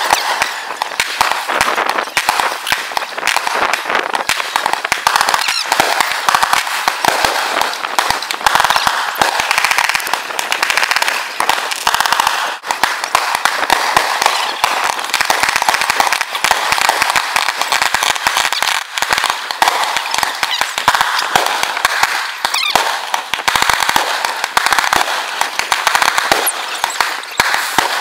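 Fireworks display: a dense, unbroken barrage of sharp cracks and pops, many per second, with no pause and little deep boom.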